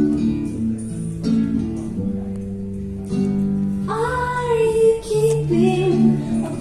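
Music played over hi-fi loudspeakers: acoustic guitar over held bass notes, with a singing voice coming in about four seconds in.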